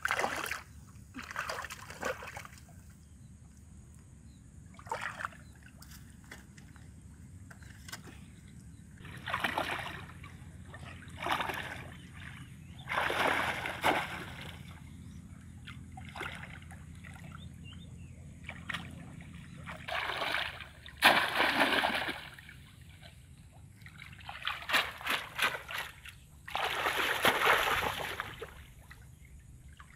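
Shallow water splashing and sloshing in irregular short bursts as hands and a woven bamboo basket trap are worked through it, with the loudest splashes in the second half.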